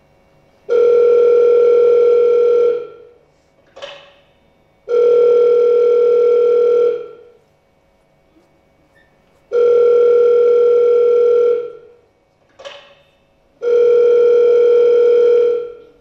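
Telephone ringing tone of an outgoing call, used as a sound effect: four long, steady beeps of about two seconds each, two seconds apart. The call is ringing at the other end. There is a short blip in two of the gaps.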